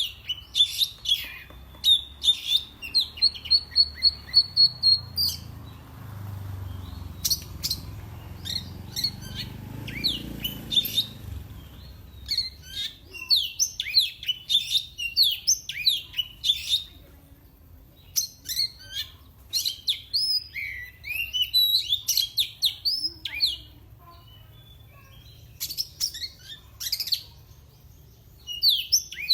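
Oriental magpie-robin (kacer) singing in bursts of rapid chirps and whistles, broken by short pauses. About two seconds in, it gives a fast, even run of one repeated note.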